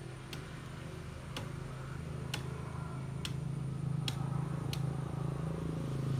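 Six sharp snaps or snips of woody branches being cut or broken by hand, about one a second, over a steady low drone that grows slowly louder.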